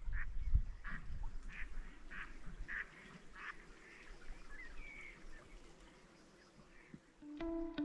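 Ducks quacking across the water in a run of short calls, about two a second, thinning out after a few seconds. Plucked-string music comes in loudly just before the end.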